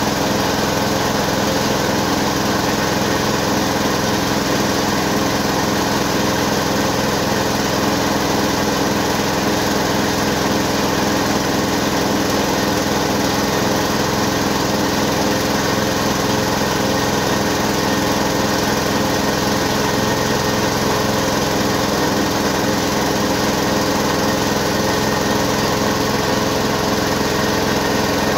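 Mini rice mill running steadily under load, a loud, even mechanical whirring as it husks paddy and pours milled rice from its spout.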